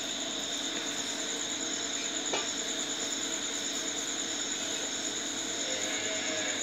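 Steady high-pitched trilling of insects, with one faint click about two seconds in.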